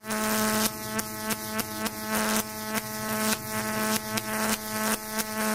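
A steady electric buzz, one low pitch with many overtones, broken by short cuts and clicks two or three times a second at an uneven, stuttering rhythm.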